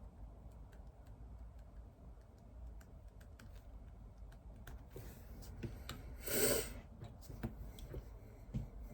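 Light, irregular clicks of typing on a computer keyboard. About six seconds in comes a brief, louder breathy rush of noise, the loudest sound here.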